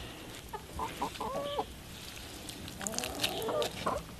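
Chickens clucking in short calls, a few about half a second in and more about three seconds in, over light sloshing of hands washing dried pickled greens in a pot of water.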